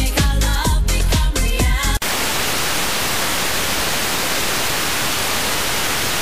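Smartphone FM radio playing a music station with a strong, regular beat for about two seconds. It then cuts suddenly to a steady hiss of FM static as the tuner moves to a frequency where no station is received.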